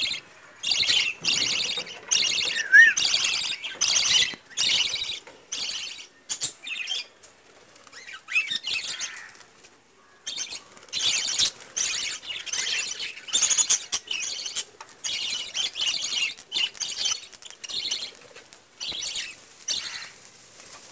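A flock of budgerigars chattering, a continuous stream of scratchy, warbling chirps, with a brief lull about eight seconds in.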